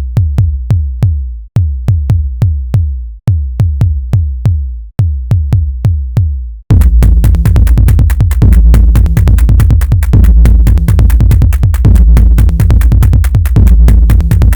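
Electronic music: deep drum-machine bass hits in a repeating pattern with a short break every couple of seconds, then the full track with a dense beat kicks in about halfway through.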